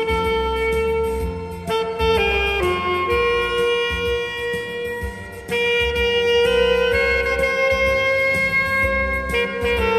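Saxophone playing a slow hymn melody in long held notes over a backing track with bass and a steady beat.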